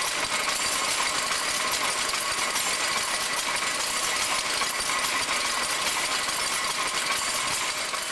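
Power loom with a Cowburn and Peck drop box motion running: a steady, dense metallic clatter from its levers and shuttle boxes.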